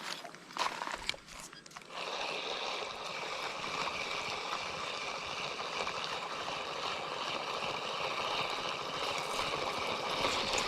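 Creek water running steadily over a shallow riffle, starting suddenly about two seconds in, after a few sharp clicks and knocks.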